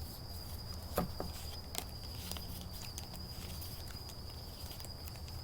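Quiet room tone: a steady faint high-pitched whine over a low hum, with a few soft clicks about a second in and again near two seconds in.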